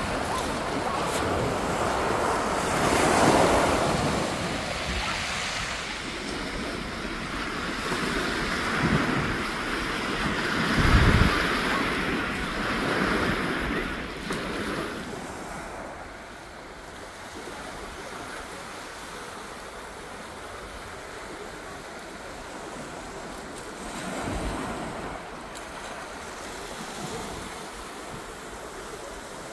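Small waves breaking and washing onto a shingle beach. The surf swells up several times in the first half and is quieter after that, with wind buffeting the microphone.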